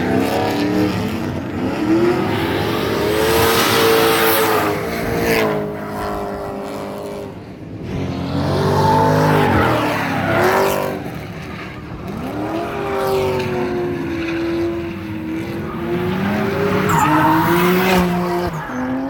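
Drift cars sliding past, engines revving with pitch rising and falling and tires squealing. Three loud passes come about six seconds apart.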